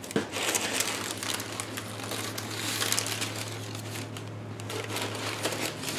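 White tissue paper rustling and crinkling as hands move and lift it, with many small crackles throughout.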